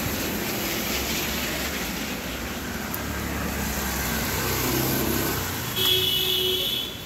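Motor vehicle passing on a rain-soaked road: engine running and tyres hissing on the wet surface over steady rain. A brief high-pitched tone sounds about six seconds in.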